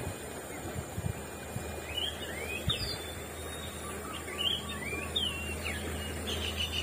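Birds calling in the background with short, quick chirps that glide up and down, ending in a fast run of repeated notes near the end. A few soft low thumps sound in the first three seconds.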